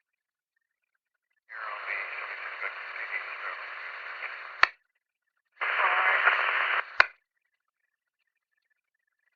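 Police radio receiver opening its squelch twice on keyed transmissions that carry only static hiss with no clear words: a longer burst of about three seconds, then a louder, shorter one of about a second and a half. Each ends with a sharp squelch-tail click as the carrier drops.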